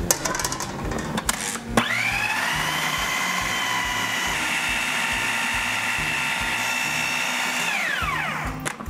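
Food processor motor starting about two seconds in with a quickly rising whine, running at a steady pitch as it purées cooked cassava with a little of its cooking water, then winding down with a falling whine near the end. Before it starts, a few clicks and knocks.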